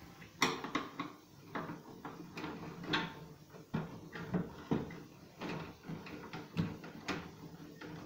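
Screwdriver turning out a holding screw in a microwave oven's metal chassis: irregular small clicks and scrapes of metal on metal, about one or two a second, as the tool is worked and repositioned.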